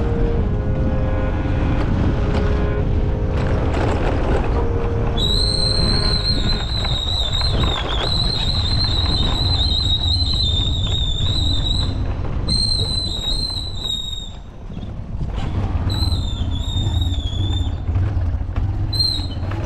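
Motorcycle being ridden, its engine running under steady wind buffeting on the microphone. About five seconds in, a high, wavering whistle-like squeal joins and comes and goes in several stretches.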